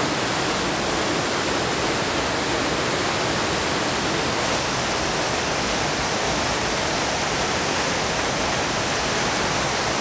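Steady rush of the Aira Force waterfall: an even noise of falling water with no breaks.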